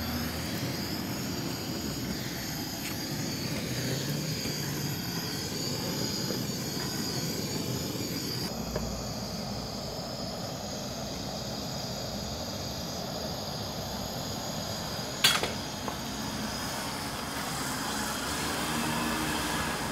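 Bottled-gas hand torch burning with a steady hiss, its flame held on a clogged, soot-caked exhaust pipe to burn out the carbon deposits. A single sharp knock about fifteen seconds in.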